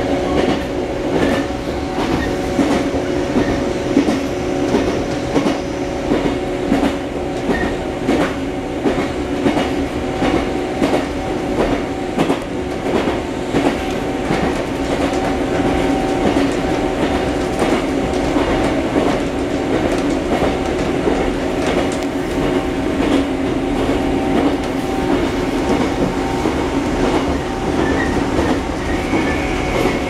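Running noise heard inside a JNR 123 series electric train car at a steady speed: a steady hum from the running gear, with the wheels clicking over rail joints.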